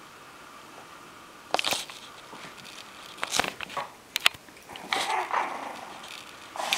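Miniature pinscher puppies yapping while they play-fight. Several short, high yips and barks come in bursts, starting about a second and a half in.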